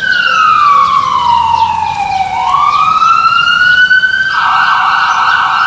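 Emergency vehicle siren wailing, the sound effect of the rescue car called for in the story. It falls slowly in pitch and rises again, then about four seconds in switches to a fast warble.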